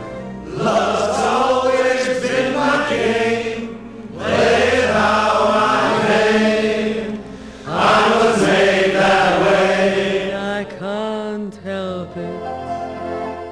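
Music with singing voices in a choir-like texture. It swells in three loud phrases, then softens in the last few seconds.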